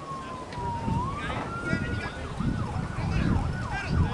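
Emergency vehicle siren sounding a slow wail that sinks and rises again, then switching to a fast yelp about two seconds in.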